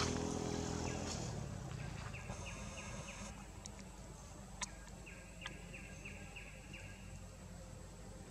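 A bird calling in two quick runs of short, repeated, downward-sliding chirps over quiet outdoor ambience. A low motor hum fades out in the first second, and two sharp clicks come midway.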